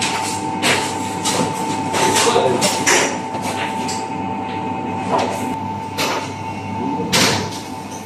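Shawarma-kitchen clatter: irregular knocks, clinks and scrapes of metal utensils against steel counters and pans, with the loudest knock about seven seconds in, over a steady machine hum.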